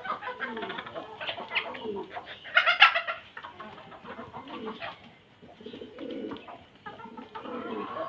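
Domestic pigeons cooing and chickens clucking. One brief, louder call comes about two and a half seconds in.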